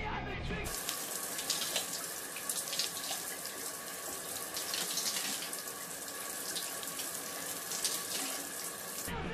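Shower water spraying steadily, starting abruptly about a second in and cutting off suddenly near the end.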